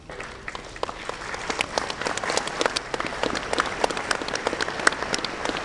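Audience applauding, with many hands clapping at once. The applause starts abruptly, grows louder over the first couple of seconds, then holds steady.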